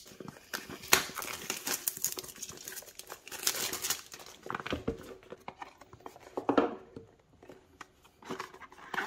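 Clear plastic shrink-wrap being torn off a cardboard box and crinkled, busiest in the first half, followed by short rustles and scrapes of the cardboard box being handled and opened.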